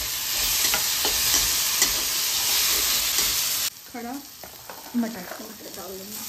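Tomato pieces and green masala paste sizzling in hot oil in a metal kadhai as a flat spatula stirs, with scattered clicks and scrapes of the spatula against the pan. The sizzle cuts off suddenly about three and a half seconds in, leaving a much quieter stretch.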